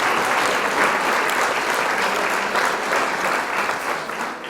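Crowd applauding, a dense steady patter of many hands clapping that fades away at the end.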